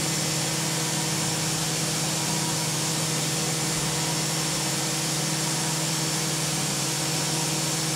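CNC milling machine running steadily as a small end mill cuts slots in a metal plate: an even mechanical hum with a few steady tones and a hiss over it.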